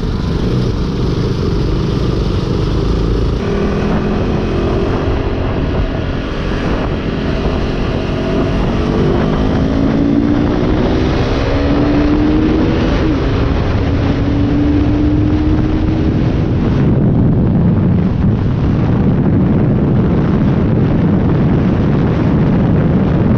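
Motorcycle engine under way, its pitch rising as the bike accelerates, dipping about halfway through and rising again as it pulls through the next gear, over a steady rush of wind and road noise.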